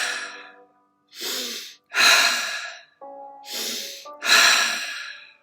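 A person doing fast breathing-exercise breaths: a quicker, quieter sniff in through the nose, then a louder blow out through the mouth, two full breaths in a row. Soft background music with held notes plays between the breaths.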